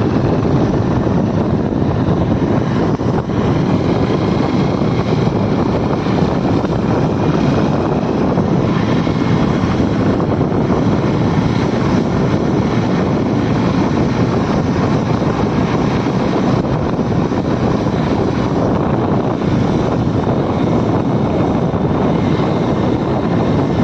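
Steady engine drone and wind rush of a moving vehicle, unbroken throughout.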